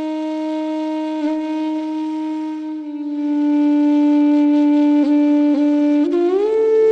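Music: a single woodwind instrument holding long, steady notes, dropping slightly in pitch about three seconds in and sliding up to a higher note near the end.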